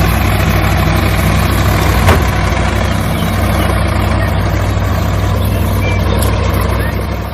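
Engine running steadily at idle with a low, even drone, having just started. There is one short knock about two seconds in.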